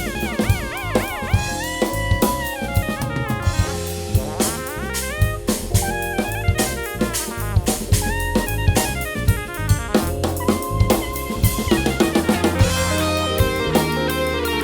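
Rock fusion band playing, with the drum kit prominent: steady snare and bass drum hits under bass and sustained chords. A wavering, bending lead line at the start, and quicker drum strikes near the end.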